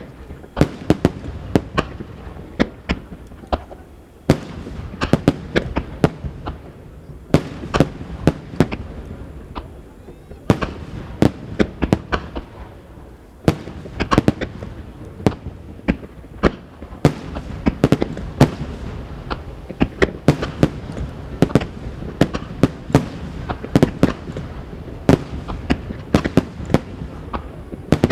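Aerial firework shells bursting in a rapid, continuous barrage: sharp bangs several a second over a low rumble, with brief lulls about four and thirteen seconds in.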